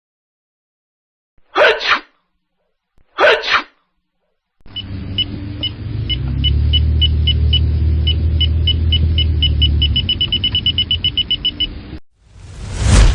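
Two short sneezes, about a second and a half apart, then a low rumble with electronic detector beeps repeating faster and faster until they run together, stopping suddenly about twelve seconds in. A whoosh swells up near the end.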